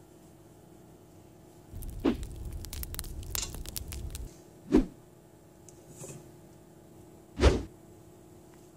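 Three short knocks about two and a half seconds apart, the last the loudest, with a rumbling, crackling burst lasting a couple of seconds around the first one.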